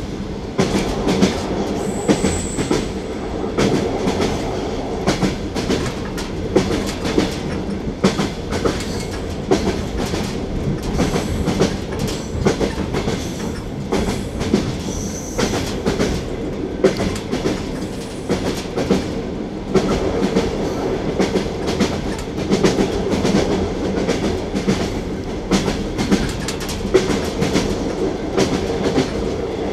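Russian passenger train carriage in motion, heard from inside: wheels clattering over the rail joints, giving repeated clicks and knocks over a steady low rumble. Two brief high squeaks come about 2 and 15 seconds in.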